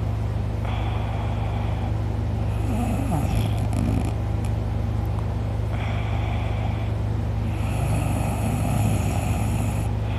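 A man snoring loudly in a slow rhythm of rasping breaths, about two full breath cycles, each drawing a gliding low pitch, over a steady low hum.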